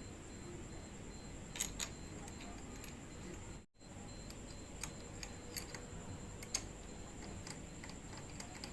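Scattered light metallic clicks and taps of hand tools on the bolts and clamp while a handlebar riser is being fitted. The sound cuts out briefly a little under four seconds in.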